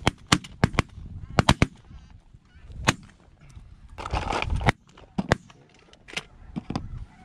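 A volley of shotgun blasts from several hunters firing at incoming snow geese: about a dozen shots, most in a quick run in the first two seconds, the rest scattered after. Snow goose honking goes on underneath.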